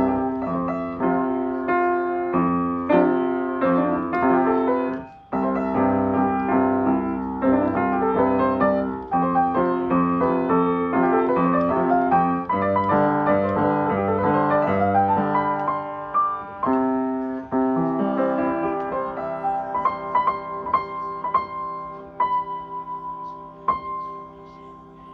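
Solo piano music, with a brief break about five seconds in, growing quieter and sparser toward the end.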